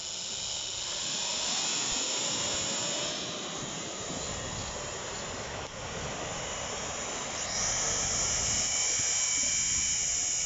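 Fishing drone's propellers whining overhead, a steady high-pitched buzz that gets louder about seven seconds in.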